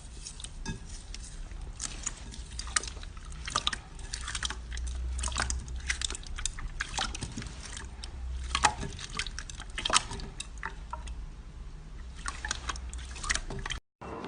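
Slime being squeezed and worked by hand, giving many small, irregular wet clicks and pops.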